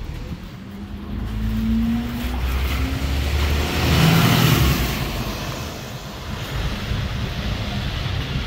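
A bus accelerating and passing close by: its engine note rises in pitch over the first few seconds, and the sound is loudest about four seconds in as it goes past, then fades.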